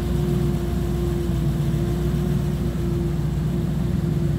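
Triumph Stag's 3.0-litre V8 idling steadily: an even, unchanging rumble with a constant hum over it.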